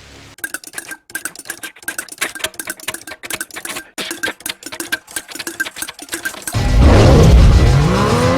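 Fast, uneven clicking and clattering over a few steady pitched notes. About six and a half seconds in, a much louder sound cuts in, its pitch sweeping up and down.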